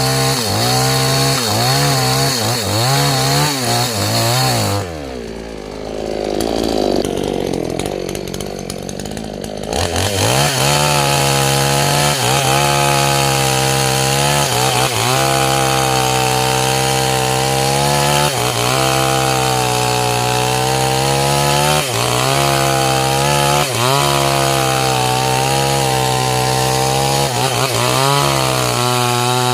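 Chainsaw revving in quick blips, dropping to a low idle for about five seconds, then held at full throttle cutting into the waru (sea hibiscus) trunk, its pitch sagging briefly every couple of seconds under load.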